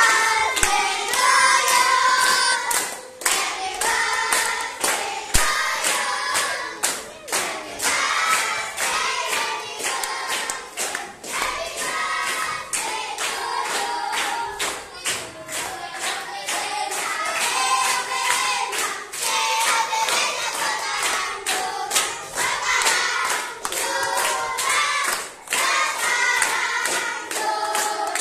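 A group of schoolchildren singing a birthday song together, clapping their hands in a steady beat.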